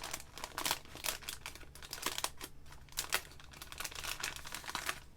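A stationery pack of paper ephemera being handled and opened, its packaging and paper pieces crinkling and rustling in quick, irregular crackles.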